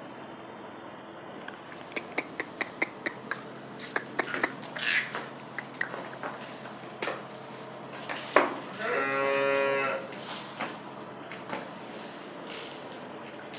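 A quick run of sharp clicks and knocks, then a cow mooing once, a single call of about a second and a half, a little past the middle.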